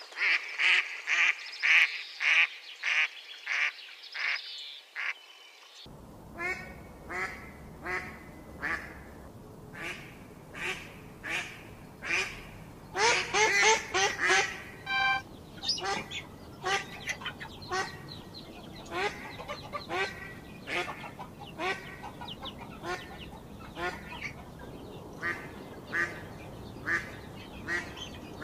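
Ducks calling: a quick run of high-pitched peeps about two a second. After a short break comes a long series of quacking calls roughly once a second, bunching together for a moment midway.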